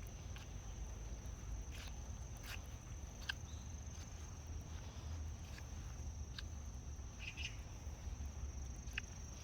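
Outdoor background noise: a steady high-pitched whine over a low rumble, with scattered light clicks throughout.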